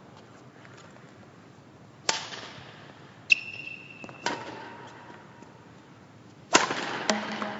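Badminton racket strings striking shuttlecocks: about five sharp cracks spread over several seconds, each ringing out with a hall echo. After the second hit there is a short high squeak.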